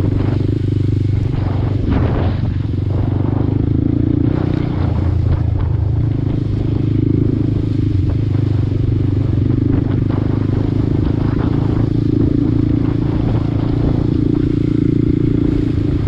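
Honda Grom's single-cylinder four-stroke engine running steadily under riding, with scattered knocks and clatter throughout.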